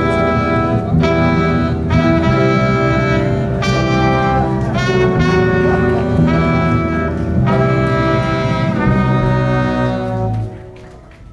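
Live swing band playing, its horn section blowing held brass chords in short phrases over the rhythm section. The band drops out near the end.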